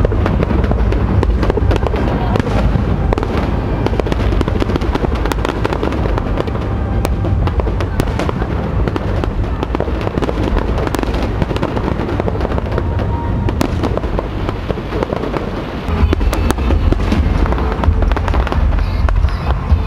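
Fireworks display: aerial shells bursting in quick succession with many sharp cracks and crackling over a continuous deep rumble, which grows louder about sixteen seconds in.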